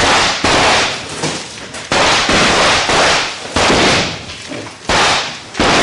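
Blank gunfire and pyrotechnic charges going off in a shootout scene: about half a dozen loud bangs at irregular intervals, each with a short fading tail.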